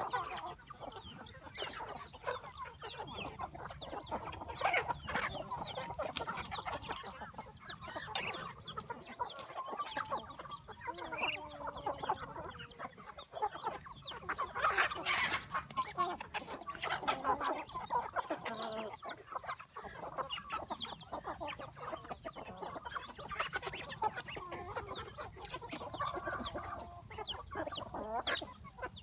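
A flock of chickens clucking, with many short calls overlapping continuously and a few longer, drawn-out calls about eleven to thirteen seconds in.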